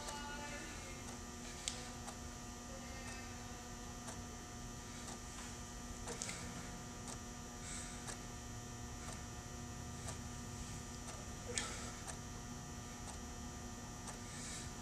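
Steady electrical hum with a faint hiss, broken by a few faint clicks and short soft hisses, the sharpest clicks about two seconds in and near the end.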